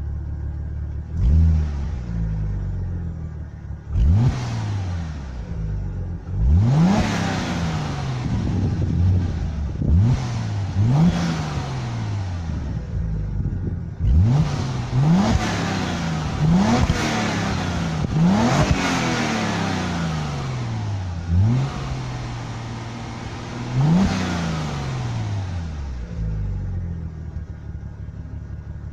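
Audi A6 C5 2.7 biturbo V6 on its stock exhaust, blipped about a dozen times from idle: each time the revs shoot up sharply and fall back more slowly to a steady idle.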